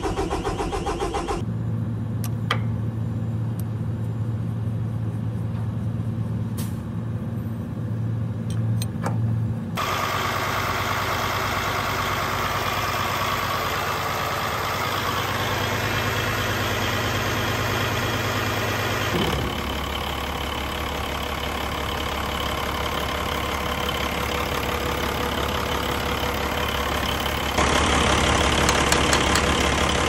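Heavy-truck diesel engine cranking with a rhythmic beat, then running at a steady idle, in several short cut clips; the last clip, from about 28 s, is louder. The sound goes with a hard start that is blamed on a failing fuel water separator.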